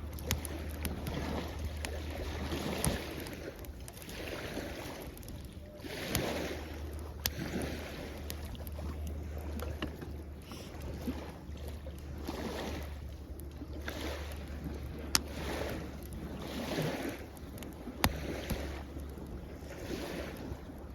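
Small waves washing onto the shore in swells every two to three seconds, with a wood campfire crackling in scattered sharp pops; two louder pops come in the second half.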